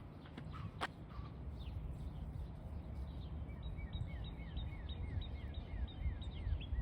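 Outdoor ambience: a steady low rumble with a sharp click about a second in; from about halfway, a small bird sings a fast run of repeated short notes, each a high note paired with a lower down-slurred one, about two a second.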